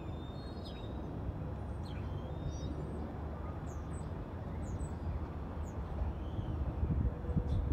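Small birds chirping now and then, short high notes over a steady low rumble that grows a little louder near the end.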